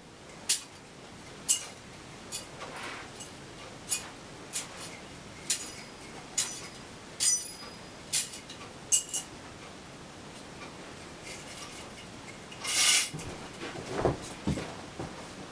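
Light metallic clinks, about one a second, as metal altar vessels touch during the preparation of the gifts at Mass. About thirteen seconds in comes a brief louder noise, followed by a few dull knocks.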